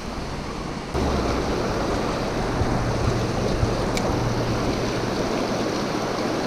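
Small rocky stream rushing steadily over stones in a shallow riffle, getting louder about a second in.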